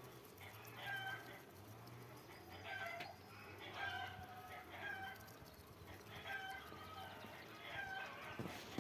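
Domestic fowl calling over and over, a short pitched call about once a second. A brief cluster of sharp knocks comes near the end.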